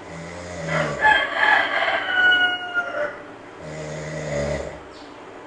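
A rooster crows once, a call of about two seconds with a slightly falling pitch, over a sleeping monkey's snoring: one snore at the start and another about three and a half seconds in.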